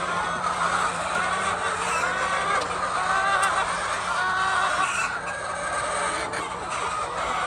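A flock of laying hens calling and clucking together, many short overlapping calls forming a continuous chorus, with a low steady hum under it for the first couple of seconds.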